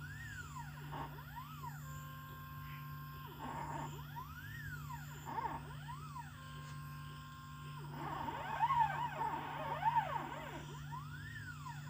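Stepper motors of a homemade CNC machine whining as it traces PCB tracks. The pitch sweeps up and down in arcs as each move speeds up and slows down, with steady held tones between moves, over a steady low hum.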